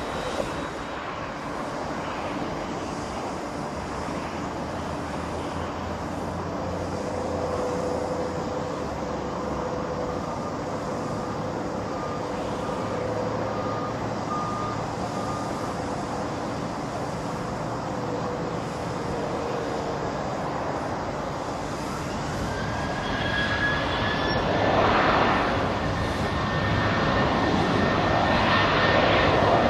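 Jet engines of a Qantas Boeing 737-800 (CFM56-7B turbofans) running with a steady hum and faint whine, then spooling up about 22 seconds in: a rising whine that grows louder toward the end as thrust comes up for the takeoff roll.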